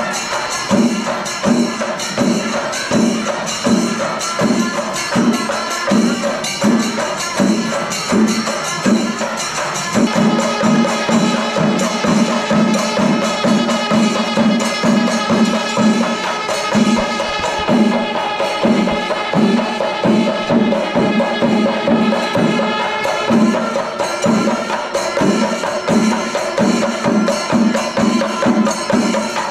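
Music with a steady percussion beat of about two strikes a second. A held melodic line joins about ten seconds in and drops out some thirteen seconds later.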